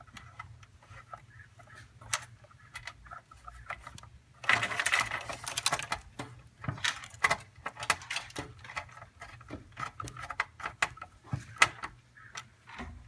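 Screwdriver driving a screw through a motherboard into a case standoff: irregular small metal clicks and scrapes, with a louder stretch of rapid clicking and rattling about four to six seconds in.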